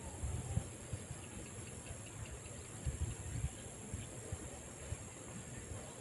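Steady, high-pitched insect chorus (crickets or similar field insects) carrying on without a break, over irregular low rumbles with a few bumps, strongest about three seconds in.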